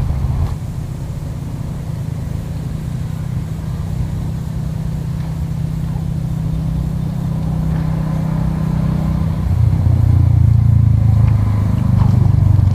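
An engine running with a steady low hum. About nine and a half seconds in it grows louder and its pitch drops.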